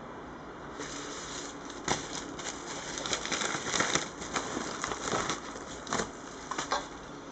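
Lens packaging being handled and opened: irregular crinkling and rustling with several sharp clicks and taps, starting about a second in and busiest midway.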